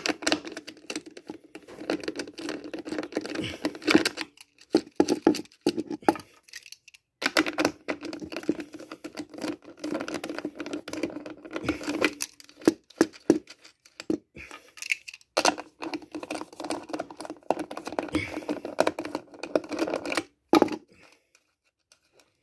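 Hand tools working small rusted screws out of an old bee smoker's bellows and wood, with irregular scraping, creaking and clicking in stop-start bursts.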